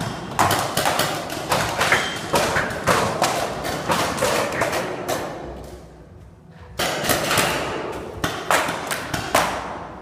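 A rapid series of sharp shots, two or three a second, each echoing in a large hall, with a short lull about six seconds in.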